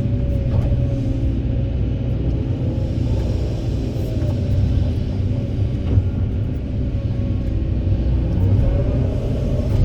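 Kobelco SK200 excavator's diesel engine running steadily under load, with a whine that falls and rises in pitch and a single knock about six seconds in.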